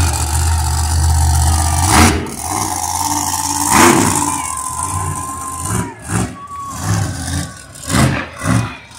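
Monster truck engine revving hard. It starts as a steady, loud, deep rumble, surges sharply twice, then runs in a string of short throttle bursts.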